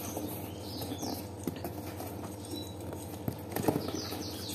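Hands handling a cardboard parcel box: scattered light knocks and scrapes on the cardboard, a cluster of them about three and a half seconds in. Birds chirp in the background.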